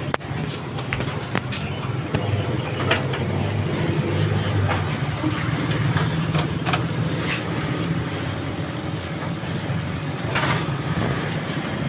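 Steady low rumble and hiss of background noise, with a few faint clicks.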